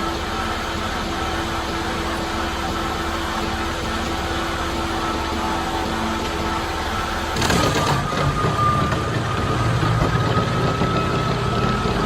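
Large wood chipper's engine running steadily with a held drone. About seven seconds in, a short noisy burst comes, and the machine sounds louder and deeper from then on.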